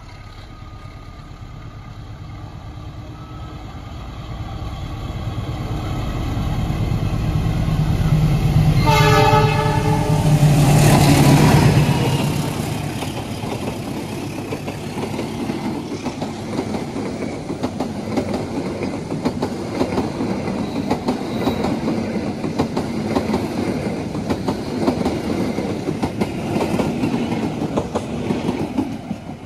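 Passenger train hauled by a diesel-electric locomotive approaching and passing close by: its rumble builds, the locomotive gives a short horn blast about nine seconds in, and its engine drone is loudest as it passes a second or two later. The carriages then go by with wheels clattering steadily on the rails.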